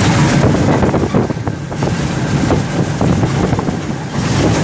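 Sri Lanka Railways Class M10 diesel locomotive running along the line, heard from outside its body: a steady engine rumble mixed with wheel-on-rail noise and irregular knocks.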